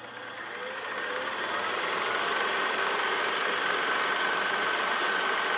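A small machine running steadily with a fast, even clicking rhythm and a faint high whine, fading in over the first couple of seconds.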